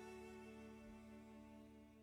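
Soft background music: held string notes that fade away near the end.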